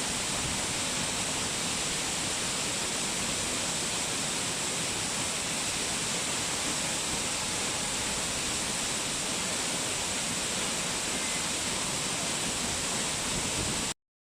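Steady rushing of a waterfall or fast river, an even hiss of falling water with no breaks, cutting off suddenly near the end.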